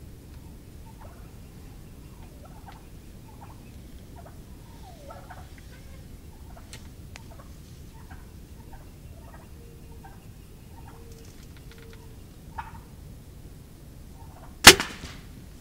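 Wild Merriam's turkeys calling close by with short soft clucks and purrs. Near the end comes one sharp, loud crack: a compound bow being shot.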